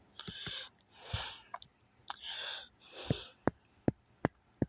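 Hushed whispering in short breathy bursts about once a second, with a run of sharp clicks, about three a second, in the second half.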